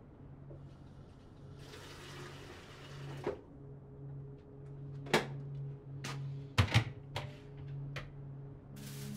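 A kitchen tap runs for about a second and a half, then crockery and utensils clink and knock at the sink half a dozen times, the loudest knocks in the middle. A low steady hum lies underneath.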